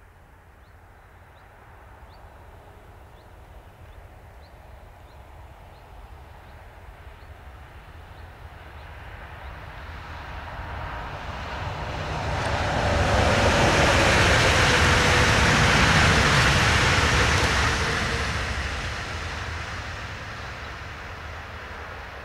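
Electric multiple-unit passenger train passing on an electrified main line: its running noise builds over several seconds, is loudest for about four seconds in the middle, then fades as it draws away, with a faint tone that falls slightly as it goes by.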